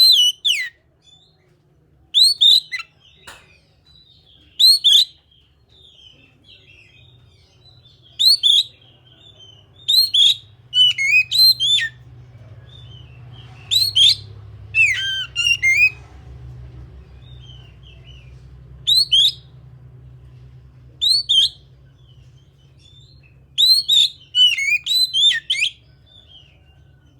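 Oriental magpie-robin (kacer) singing: short loud phrases of rapid whistled notes sweeping up and down, repeated every second or two with tighter clusters in places, over a faint steady low hum.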